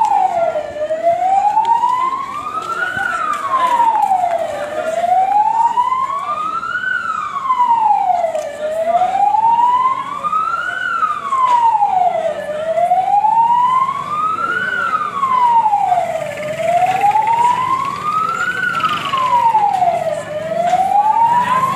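Emergency vehicle siren in a slow wail, its pitch rising and falling steadily about once every four seconds.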